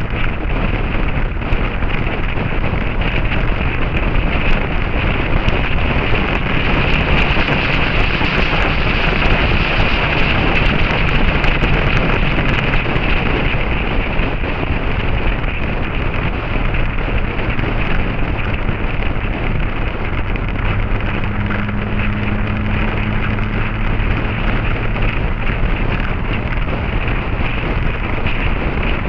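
Wind rushing over the microphone of a camera on a moving motorcycle, with the engine's low note running faintly underneath and shifting pitch a little past the middle.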